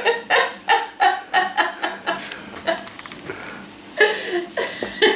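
A person laughing in quick repeated bursts, about three or four a second, fading out about two seconds in. A few light clicks follow, then laughing or voice starts again near the end.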